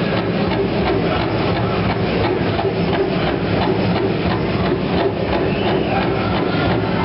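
Pow wow drum beating a steady, even rhythm for the dancers, over the noise of a large crowd and the dancers' regalia.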